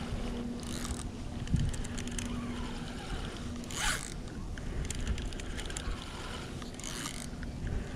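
Spinning reel being cranked: its gears whir and tick as line winds onto the spool, with a few brief whooshes about a second in, around four seconds and near seven seconds.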